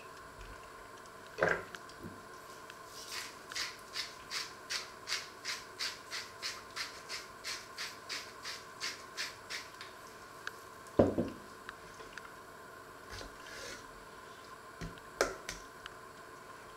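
A run of about twenty short scraping strokes, about three a second, as food is stirred and scraped in a frying pan. Then two sharp knocks on a wooden cutting board as a potato is cut.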